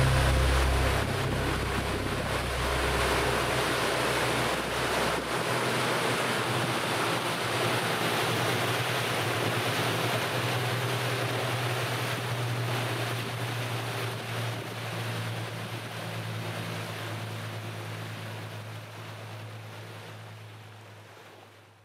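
Motor yacht under way on open water: the steady rush of water and wake with a low, steady engine hum. A deeper rumble drops away about five seconds in, and the whole sound fades out slowly toward the end.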